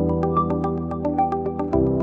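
Background music: sustained synthesizer chords over a steady, quick ticking beat, with a chord change near the end.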